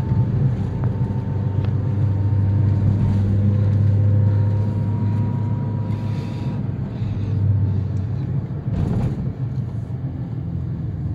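Steady drone of a vehicle driving at speed, heard from inside the cabin: a low engine and road hum with a faint steady whine above it. Two brief swells of noise come about six and nine seconds in.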